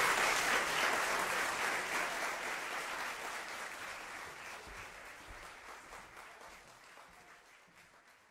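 Audience applause, many hands clapping, fading out steadily.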